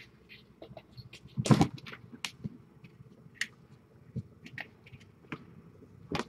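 A kitten scrambling in a clear plastic bowl, its paws and a small ball toy knocking against the plastic: scattered light clicks and taps, with one louder knock about a second and a half in and another near the end.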